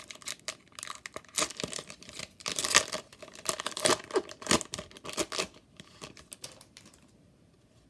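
A 2018 Topps Chrome foil card pack being torn open and its wrapper crinkled, a run of irregular crackles that dies away about six seconds in.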